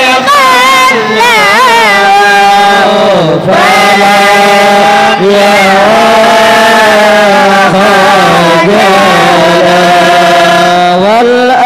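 A male voice sings a drawn-out, melismatic line of an Arabic praise poem (syair) for Syekh Samman. It wavers through quick ornaments at first, then holds long, level notes, dipping in pitch about three seconds in and rising again near the end.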